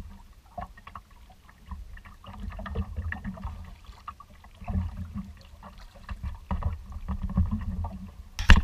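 Choppy water slapping against a plastic kayak's hull, heard through the bow-mounted camera as irregular low thumps and splashes. A loud scrape comes right at the end.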